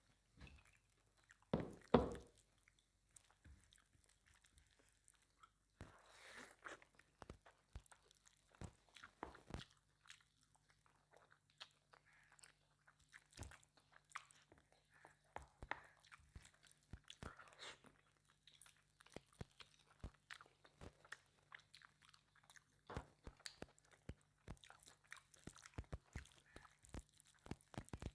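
A person chewing and biting mouthfuls of mutton curry with pulao, close to the microphone: a string of short wet chewing clicks and smacks, with a louder bite about two seconds in.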